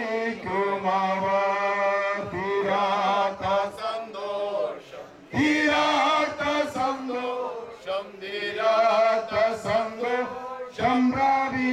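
A group of voices, men prominent, singing a slow Christian funeral hymn together in long held lines, with a short break between lines about five seconds in.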